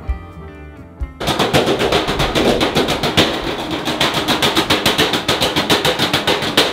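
Drumsticks beating rapidly on metal trash cans in a trash-can percussion act. After about a second of soft background music, a fast, even roll of strikes starts suddenly and keeps going loudly.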